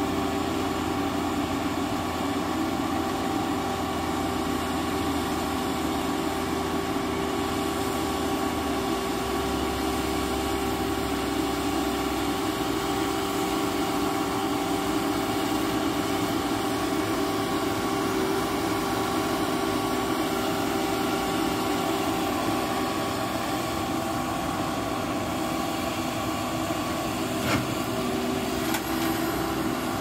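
Al-Jon 580 car-logger baler's engine and hydraulics running steadily, a continuous drone with a held whine over it. A short sharp knock near the end.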